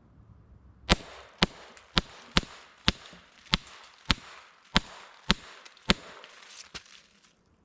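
AEA HP SS Plus .25 caliber semi-automatic PCP air pistol fired rapidly, about ten sharp shots roughly half a second apart. A couple of fainter ticks follow near the end.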